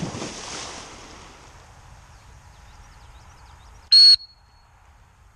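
A Labrador retriever's leap into a pond: splashing water dying away over about a second. About four seconds in comes one short, shrill blast on a dog-training whistle, the single-blast stop signal to the swimming retriever in a single-T drill.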